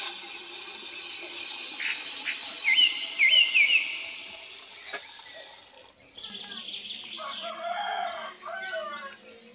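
Split mung dal being poured into a pot of water, a steady pouring and splashing hiss that stops about six seconds in. Around three seconds in, a bird chirps several times, louder than the pour.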